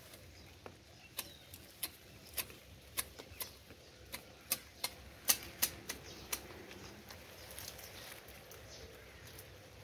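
Hand hedge shears snipping ficus twigs and leaves while trimming a topiary: a quick, irregular run of sharp snips, about two to three a second, that stops about two-thirds of the way through.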